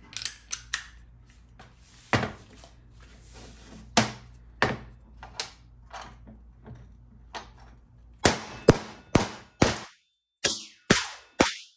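Hammer blows on a steel bushing driver set in a Dodge 48RE transmission sun gear, driving out the worn sun gear bushing. A few separate strikes come first, then a steady run of about two blows a second near the end, each with a short metallic ring.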